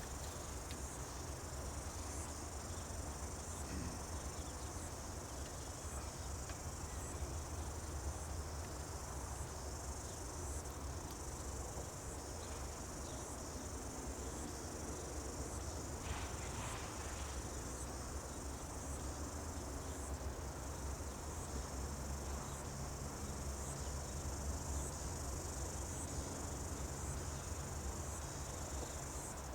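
Steady, unbroken high-pitched chorus of insects, with a low rumble underneath.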